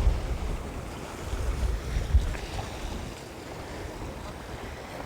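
Wind buffeting the microphone in gusts, strongest in the first two seconds, over a steady wash of ocean surf.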